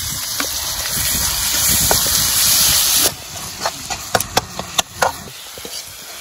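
Chopped tomatoes hitting hot oil and fried onions in a black iron kadai, sizzling loudly; the sizzle cuts off suddenly about three seconds in. A metal ladle then clinks and scrapes against the pan while the frying goes on more quietly.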